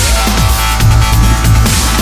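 Background electronic music with a heavy bass beat and sustained synth tones.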